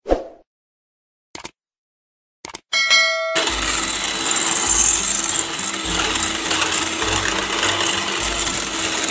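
Electric hand mixer running steadily, its beaters whipping cream in a stainless steel bowl, starting about three seconds in. Before it, a short hit, two clicks and a brief chime.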